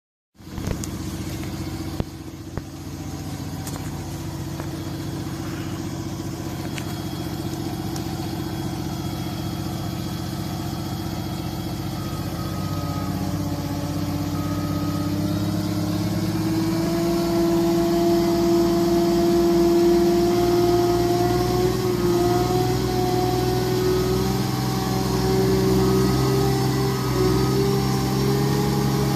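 Diesel engine of a forestry forwarder stuck in deep mud, running steadily; from about halfway its note slowly rises and grows louder.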